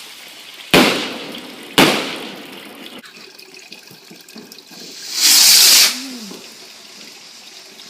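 Fireworks going off: two sharp bangs about a second apart near the start, then a loud hissing whoosh lasting under a second about five seconds in.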